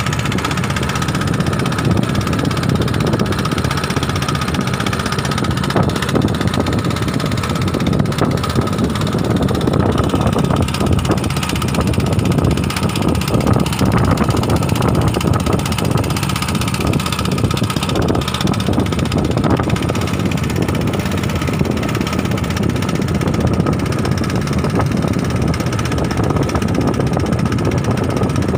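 An engine running steadily, with a thin steady tone above its low rumble.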